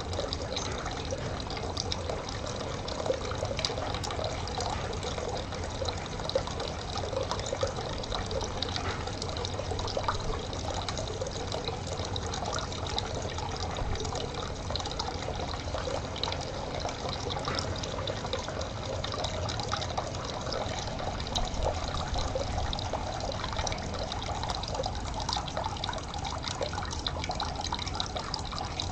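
Running water trickling steadily, with many small splashing drips.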